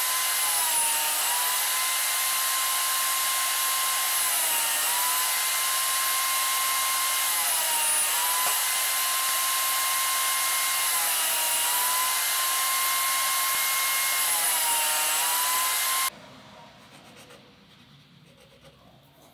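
Table saw motor running, its whine dipping in pitch five times, once with each crosscut the blade makes through a plywood test board for the five-cut squaring check. The saw sound cuts off abruptly about sixteen seconds in.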